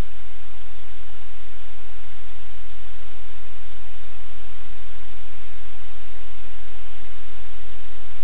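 Loud, steady static hiss with a low hum beneath it, unchanging throughout.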